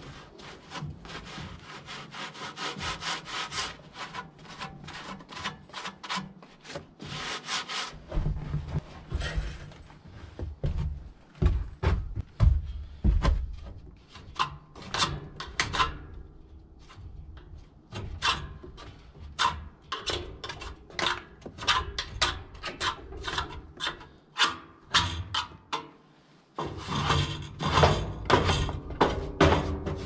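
Repeated hand brushing and scraping strokes on a band sawmill's frame and blade housing, clearing off snow, sawdust and ice. The strokes come quickly, a few a second, then slow down in the middle and pick up again near the end.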